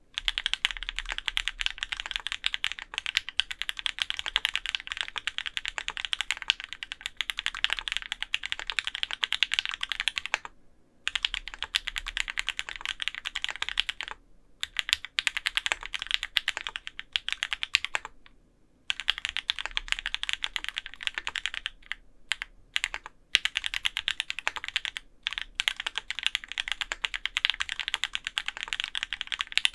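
Fast typing on a top-mount Orion v2.5 mechanical keyboard with lubed Opblack switches, an aluminum plate and GMK keycaps: a dense run of keystroke clacks broken by several brief pauses.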